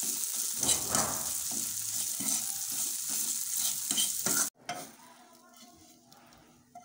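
Cumin seeds sizzling in hot oil in a frying pan while a fork stirs them, its tines scraping across the pan again and again. The sizzling cuts off suddenly about four and a half seconds in.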